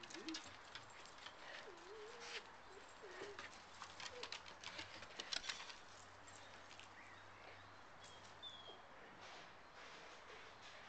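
Quiet backyard sound of small dogs at play: faint scuffles and clicks of paws on grass and dirt in the first half, a few soft wavering low calls, and a short high chirp near the middle, after which only a faint steady background remains.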